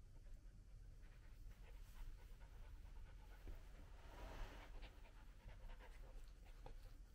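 Faint panting of a Samoyed puppy held in someone's arms, with a short louder rustle of movement about four seconds in.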